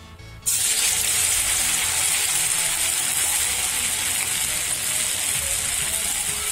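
Pakora batter of ground leftover rice and chana dal deep-frying in hot oil in a kadhai: a loud, steady sizzle that starts suddenly about half a second in.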